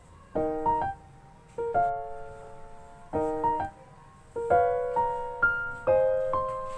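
Soft background piano music: gentle chords struck one after another, each fading before the next, with short pauses between phrases.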